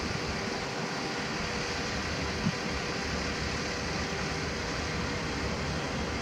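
Pacific National NR-class diesel-electric locomotives idling, a steady engine hum, with one brief knock about two and a half seconds in.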